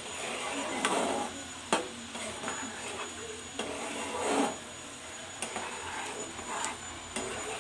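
Wooden spatula stirring green peas through a thick, wet masala gravy in a non-stick pan: wet scraping swishes with a few sharp taps of the spatula against the pan, the loudest just before two seconds in.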